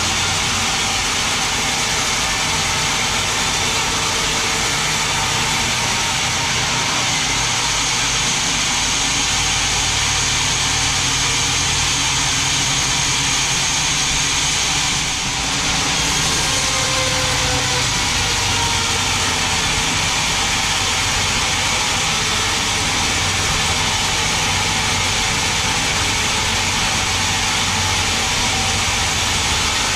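Large band sawmill running, its blade cutting lengthwise through a big mahogany log: a loud, steady sawing noise over the machine's hum, with a brief dip about halfway.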